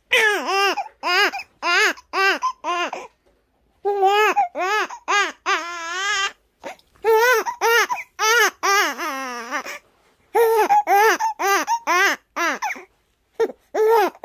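Newborn baby crying from hunger: short, rhythmic cries in quick runs broken by pauses of about a second, with one longer wail that falls in pitch about two-thirds of the way through.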